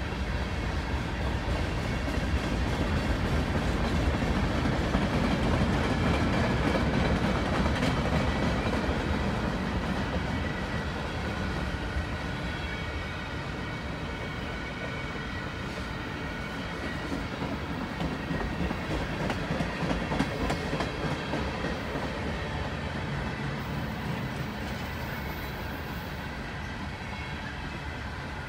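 Freight cars of a long mixed manifest train (boxcars, tank car, gondolas) rolling past: a steady rumble of steel wheels on rail with clicking over the rail joints, loudest about five seconds in and easing a little after.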